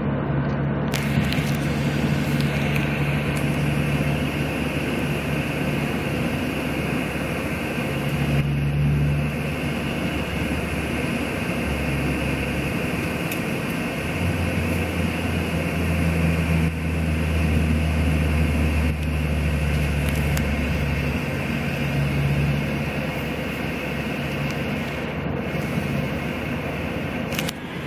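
Steady road and engine noise heard inside a moving car, with a low drone that rises and falls in strength.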